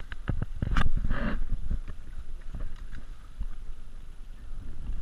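Wind buffeting the camera microphone as a steady low rumble, with scattered short clicks and a brief rustle in the first second or so from gear being handled.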